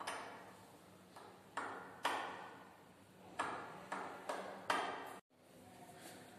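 Glass laboratory glassware clinking: a glass conical flask knocks against other glassware as it is handled, giving about seven light, ringing clinks over five seconds that each die away quickly.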